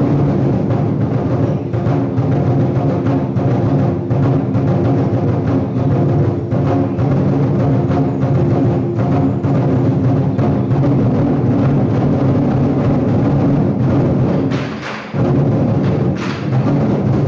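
Loud music carried by drums and percussion, with dense, steady strikes throughout, briefly dropping away about fifteen seconds in.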